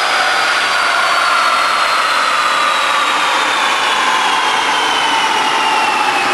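Chassis dyno roller and the car's tyres and driveline spinning down after a power pull: a steady loud whirring with a whine that falls slowly in pitch as it coasts down.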